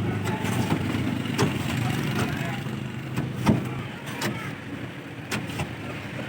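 Street traffic: a motor vehicle engine runs steadily nearby and fades away over the second half, with scattered sharp clicks and knocks mixed in.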